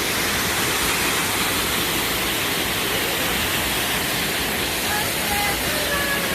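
Steady rush of water falling and splashing from an indoor hotel waterfall, with faint voices in the background near the end.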